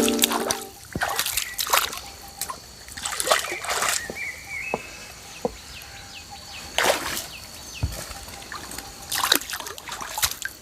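Water splashing in irregular bursts as feet step through a shallow rocky stream, over running water.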